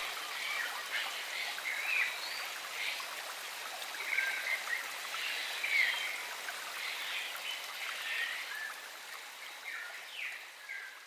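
Forest creek ambience: a small stream's running water, with scattered short, high chirps throughout. The sound fades out near the end.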